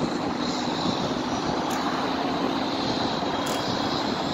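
Crane's engine running steadily as it holds and lifts the rooftop unit: an even drone with a faint high whine.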